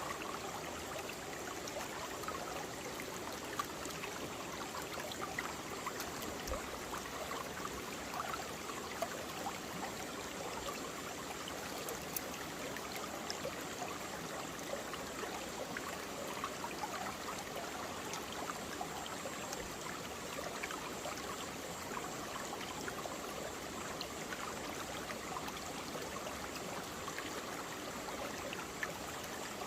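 Mountain stream flowing over rocks in a valley: a steady rush of water with small splashes and babbling throughout.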